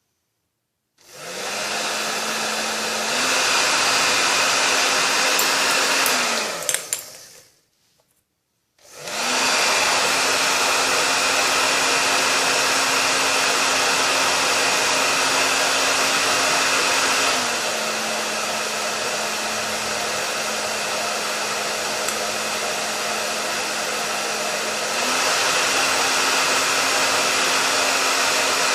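Hair dryer blowing: switched on about a second in and stepped up to a higher setting, then switched off, its motor winding down with a falling pitch. Switched on again, it runs steadily, drops to a lower setting about halfway and steps back up near the end.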